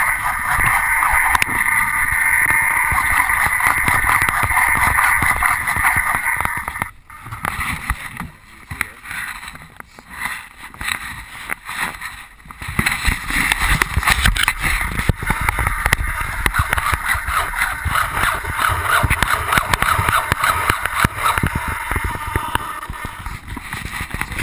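CMP PT-19 radio-controlled model airplane in flight, its motor and propeller running with a steady buzz. The buzz drops away for about five seconds roughly a third of the way in, then comes back. Wind buffets the microphone throughout.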